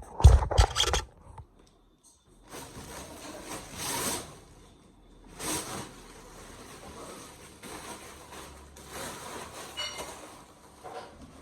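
Knocks and rustling from handling an air cooler's packaging: a loud cluster of knocks in the first second, then, after a brief pause, several swells of rustling and scraping.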